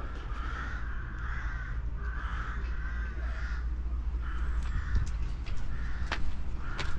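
Crows cawing repeatedly, a run of about eight harsh calls, over a steady low rumble.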